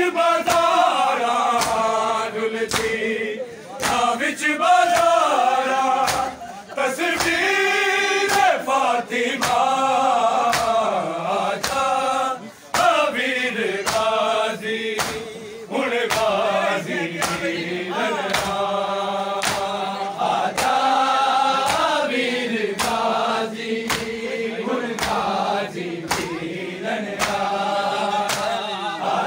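A crowd of men chanting a noha, a Shia lament, in unison in long held phrases. It is set to a steady beat of open-hand slaps on bare chests (matam), about one and a half slaps a second.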